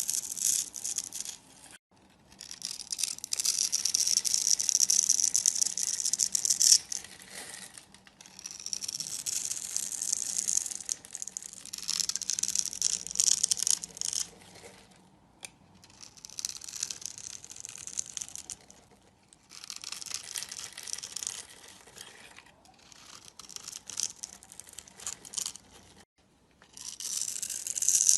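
A blade scraping and shaving a bar of soap in a run of strokes, each one to five seconds long with short pauses between, with a crisp crackling texture.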